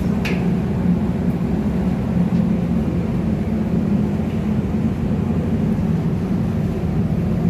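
Steady, loud drone of running ship's engine-room machinery, a continuous low rumble with no breaks.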